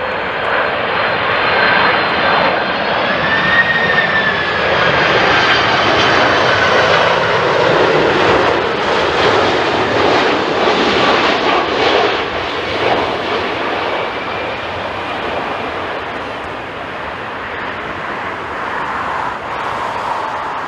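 Jet airliner flying past low: the engines' whine bends in pitch a few seconds in, and the rushing noise swells to its loudest in the middle, then slowly eases off.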